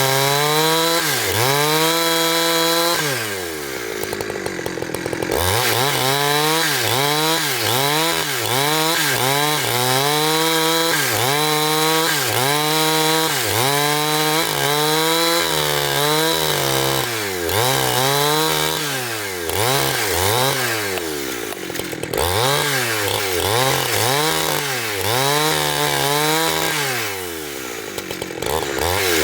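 Petrol engine of a wood-cutting saw running under load, its pitch sagging and recovering about once a second as it cuts through the log. The engine drops back lower and quieter twice, a few seconds in and near the end.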